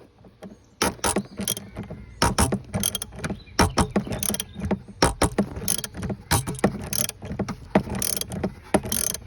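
Irregular sharp clicks and knocks, several a second, as tools and parts are handled at the oil filter.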